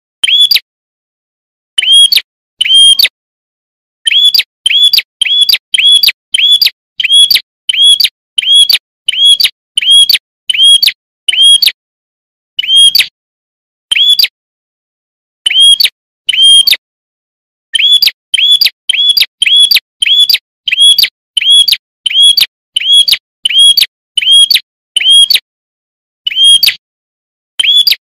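Prinia (prenjak) chirping: one sharp, identical note repeated over and over, about two a second in runs broken by short pauses. Between the notes there is dead silence, as in an edited, looped training recording.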